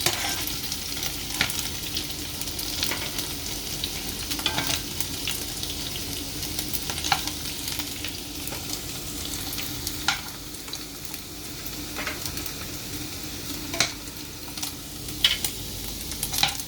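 Meatballs sizzling steadily as they fry in a pan, with scattered sharp clicks and scrapes of a utensil turning them against the pan.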